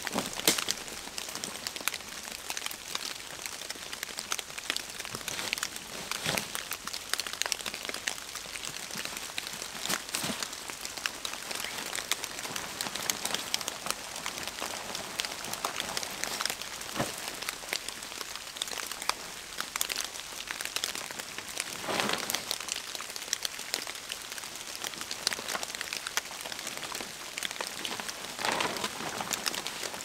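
Steady rain falling through woodland onto leaves, a dense stream of close drops. A few louder rustles come every few seconds.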